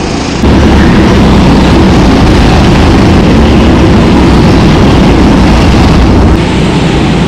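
Go-kart engines running hard as a pack of karts races past close by, a loud, dense, steady noise that jumps louder about half a second in and eases slightly near the end.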